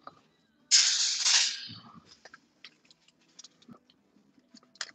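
A metal prong training collar's links rattle and jangle for about a second while it is being handled, followed by a few faint clicks and a short sharp click near the end.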